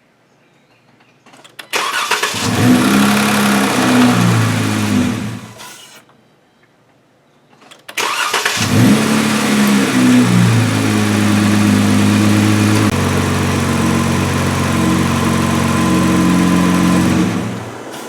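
2015 Jeep Wrangler JK's 3.6-litre Pentastar V6 started and run briefly on fresh oil to check for leaks. It cranks and catches, runs for about four seconds and is shut off, then is started again about eight seconds in. It runs at a fast idle that drops to a lower idle about thirteen seconds in, and is shut off near the end.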